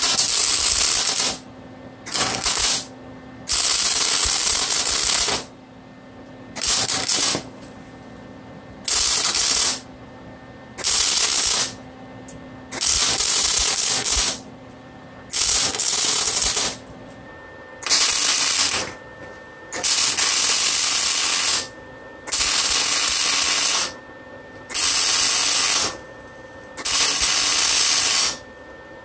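Electric arc welder stitch-welding steel radiator-mount brackets, in about fourteen short bursts of arc noise of one to two seconds each, with a second or so of pause between them. The welder is set for slightly thicker steel than these brackets, so it runs hot enough to burn through in places.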